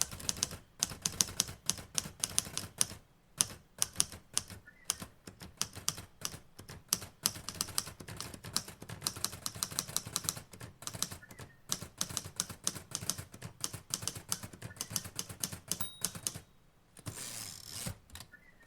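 Typewriter keys clacking in fast, uneven runs of strokes, with a brief pause near the end.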